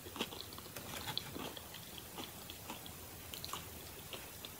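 Chewing a mouthful of crunchy hard-shell chicken taco: faint, scattered crunching clicks.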